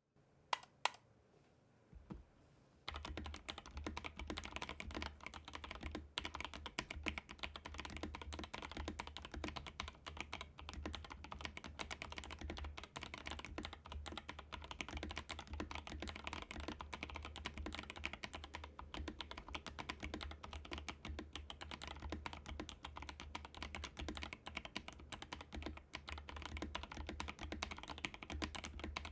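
Keychron K2 v2 mechanical keyboard with lubed Boba U4T tactile switches being typed on. There are a few single key clicks at first, then fast continuous typing from about three seconds in.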